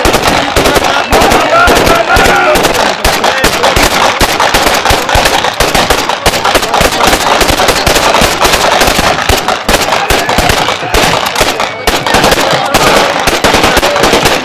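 Celebratory aerial gunfire: dense, overlapping volleys of gunshots, many a second, with no letup.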